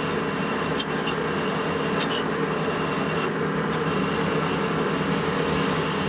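A motor-driven tool running steadily while abrading metal, a continuous rasping noise with a steady hum underneath and a few brief dips in the hiss in the first half.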